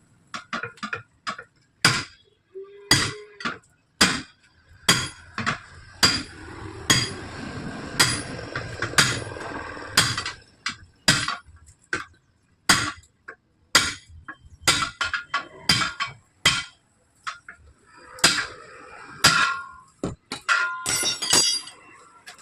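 A series of sharp hammer blows at an uneven pace, about one a second, many with a short metallic ring, as a 7.00-15 tyre is beaten loose from its wheel rim by hand. Near the end there is a short stretch of scraping and clinking between blows.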